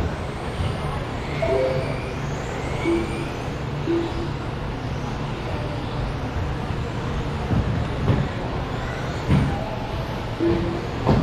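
Electric 1/10-scale stadium trucks with 13.5-turn brushless motors racing around an indoor track. Their motors whine, rising as they accelerate, with a few sudden thumps from landings and hits.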